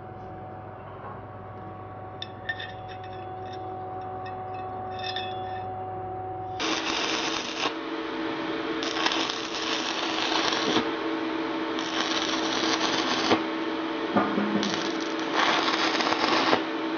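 Electric arc welding on a steel tube: four separate runs of crackling, sizzling arc, each one to two seconds long, starting about six and a half seconds in. Before the first run there is only a steady hum with a few light clicks.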